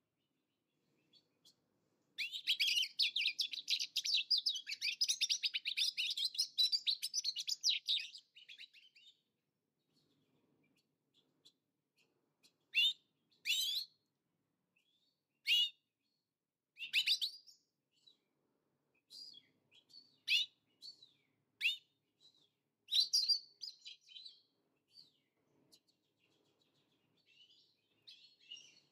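Mutation European goldfinches: a run of rapid high twittering song starting about two seconds in and lasting some six seconds, then single short falling call notes every second or two.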